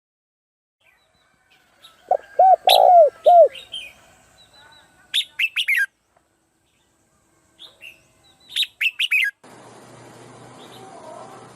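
Birds calling. A run of four low, arched notes comes about two seconds in, then quick clusters of high, downward-sweeping chirps around five and nine seconds in. Near the end a faint steady hiss starts abruptly.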